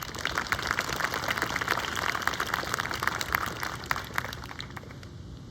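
An audience clapping in welcome, dying away about four to five seconds in.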